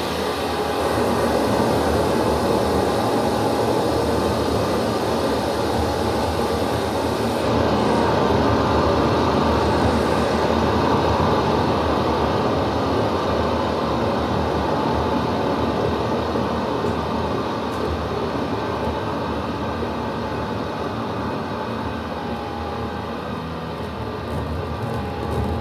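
Dense, steady droning wash of electronic sound from an experimental sound-art piece, with a few faint held tones inside it. It swells in the first couple of seconds and eases a little near the end.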